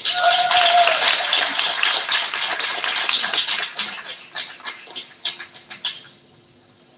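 Crowd applauding a graduate called up for a diploma, with a brief held call at the start. The clapping thins to a few scattered claps and stops about six seconds in.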